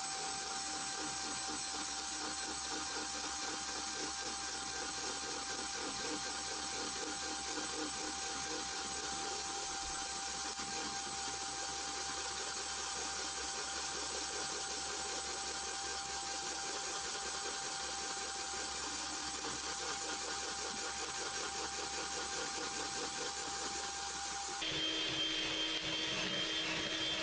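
Electric hand mixer running steadily, its beaters whisking eggs and sugar in a plastic bowl with a steady whine. Near the end the whine suddenly drops to a lower pitch.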